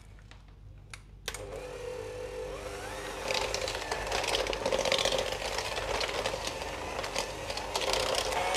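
Electric hand mixer switching on about a second in and running steadily, its beaters creaming butter and sugar in a stainless steel bowl; it gets louder a couple of seconds later as the beaters work into the mixture.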